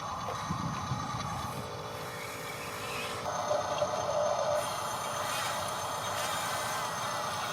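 Small electric gear motors of a radio-controlled construction machine whining steadily, with a louder, lower whine in the middle as the motors change load.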